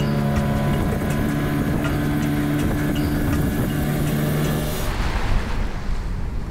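Small outboard motor on an inflatable dinghy running at speed: a steady engine drone. About five seconds in it gives way to a rush of water and wind.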